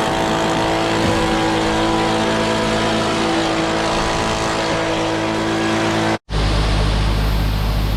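Combine harvester running with a steady drone and a whine over it. A sudden break about six seconds in gives way to a deeper, steady engine hum.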